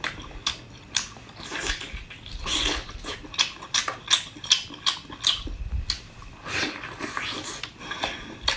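Close-miked eating of conch meat: irregular wet lip smacks and chewing clicks, with a couple of longer slurping breaths.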